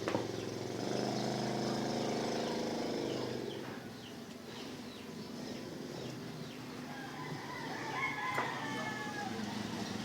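A rooster crowing in the background, with a steady engine hum during the first few seconds.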